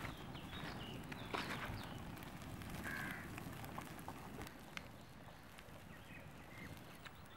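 Open charcoal and firewood fire crackling, with sharp pops near the start and about a second in, while birds call a few times, one call clearest about three seconds in.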